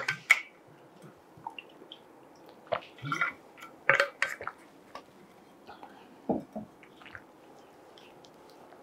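Quiet classroom room tone with a few brief, faint murmurs and small clicks and rustles scattered through it.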